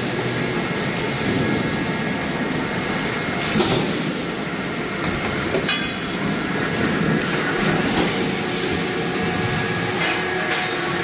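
Automatic hot ring forging line running: a forging press and its transfer gear work red-hot ring blanks, giving a dense, steady industrial clatter. A couple of sharp metallic knocks stand out near the middle.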